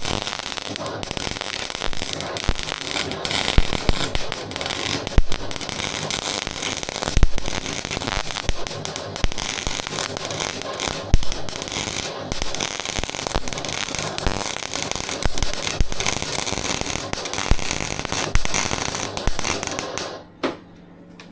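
Arc welding on a steel bash bar: the arc crackles and sputters steadily, then stops abruptly about 20 seconds in as the weld is finished.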